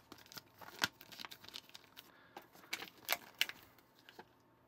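Pages of a small paper instruction booklet being handled and flipped: a series of short crinkling rustles and clicks, loudest about a second in and again around three seconds in.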